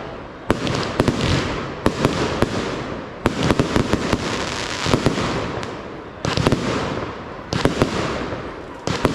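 Fireworks display: a rapid run of aerial shell bursts, sharp bangs each trailing off into crackling, with fresh volleys every second or so.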